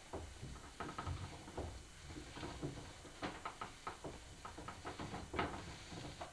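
Irregular light clicks and soft knocks, a few a second, as a potter shapes a clay pot on a hand-turned potter's wheel.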